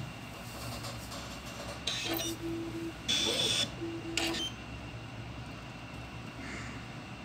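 Voltera V-One circuit board printer at work, its motors moving the conductive-ink dispensing head across the board: a steady low hum, short steady motor tones about two and four seconds in, and a louder buzzing move between them, with a few clicks.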